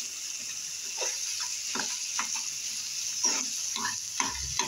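Fish-head pieces in a thick tomato masala sizzling in a kadai while a spatula stirs and scrapes through them, with scrapes and knocks against the pan at irregular intervals and a low thump near the end.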